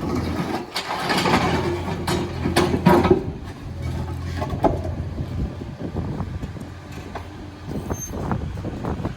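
Engine of a construction machine running under work, with several sharp knocks and clatters of concrete slabs being broken up and moved, most of them a few seconds in.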